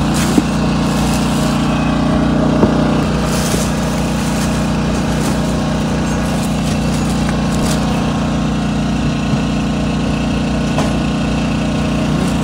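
An engine running steadily, making an even low drone, with a couple of light clicks.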